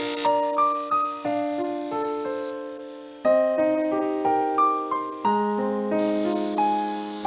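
Background music: piano playing a slow sequence of notes and chords.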